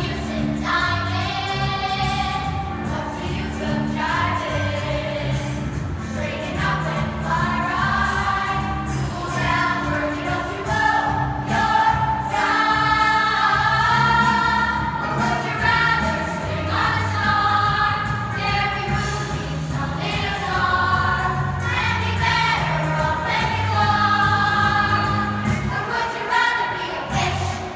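Youth choir of children singing a Broadway show-tune medley together over an instrumental accompaniment with a steady bass line.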